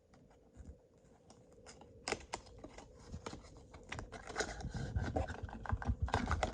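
Trading cards and their cardboard packaging being handled: a quick run of small clicks, snaps and rustles, sparse at first and coming thick and fast from about two seconds in.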